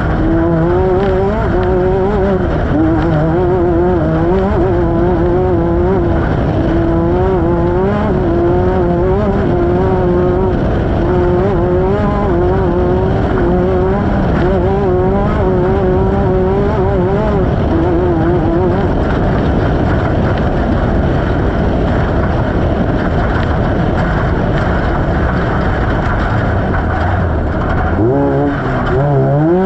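Off-road race vehicle's engine running hard, its pitch wavering up and down with the throttle for most of the stretch. It then turns into a rough, noisy rumble, and near the end rises sharply as the engine revs up.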